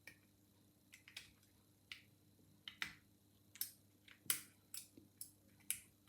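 About a dozen faint, irregular metallic clicks from a wire lever pick and tension tool working the levers inside an old Chubb 5-lever mortice lock.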